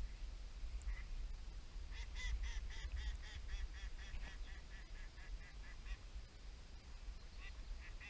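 A hen mallard quacking in a quick run of about five calls a second that grows fainter over some four seconds. A second run starts near the end. Low wind rumble on the microphone underneath.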